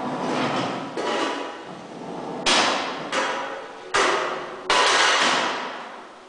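A run of five sharp bangs about a second apart, each hard strike ringing out briefly before the next; the last three are the loudest.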